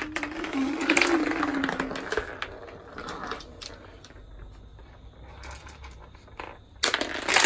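A toddler's voice making a drawn-out hum for about the first two seconds, then scattered light clicks and taps as small hard round objects are picked up and dropped on a timber floor. A louder burst of noise comes in near the end.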